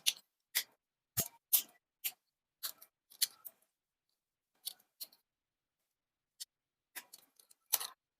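Sharp plastic clicks and snaps from the parts of an HG 1/144 Guel's Dilanza Gunpla model kit being handled and fitted together during assembly. About fifteen short clicks come at irregular intervals.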